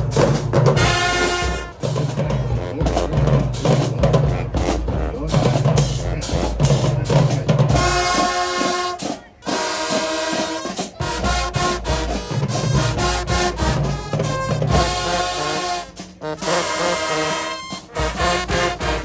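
High school marching band playing: brass chords over a pounding drumline, with short breaks in the music about nine and sixteen seconds in.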